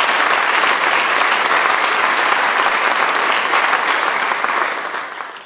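Audience applauding, a dense even clapping that dies away near the end.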